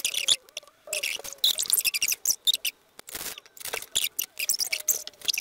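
Hot glue gun in use, the trigger squeezed again and again as glue is laid on cardboard: irregular crackling clicks with a few faint squeaks.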